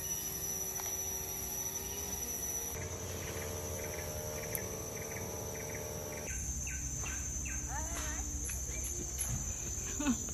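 Tropical forest insects buzzing steadily at a high pitch, with a short chirp repeating about three times a second in the middle and a few whistled bird calls in the second half. The background changes abruptly twice where the clips are cut together.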